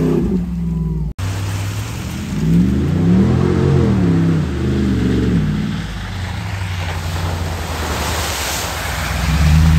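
Ram 2500 Power Wagon's 6.4-litre Hemi V8 revving up and down as the truck drives through mud, with mud and water splashing off the tyres, the splashing strongest near the end.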